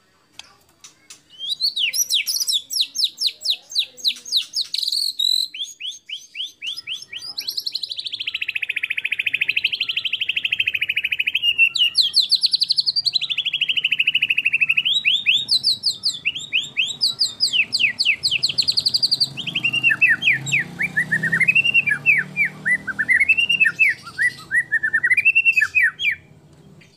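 White-rumped shama (murai batu) singing a long, loud, varied song. It is made of rapid runs of sharp repeated notes and fast trills, and turns to looping whistles that rise and fall near the end.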